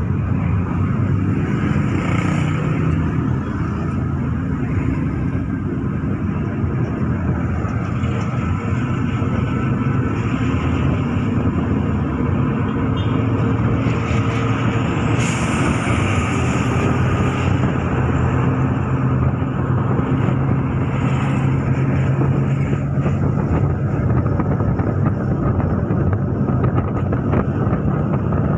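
Steady engine hum and road rumble of a car moving through city traffic, heard from inside the car.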